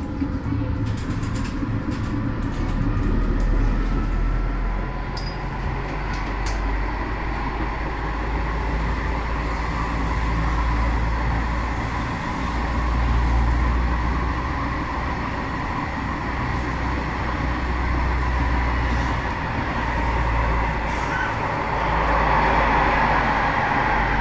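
Tatra T4D tram running, heard from inside the passenger car: a steady low rumble of wheels on the rails with a motor whine that drifts in pitch, and a few sharp clicks in the first seconds.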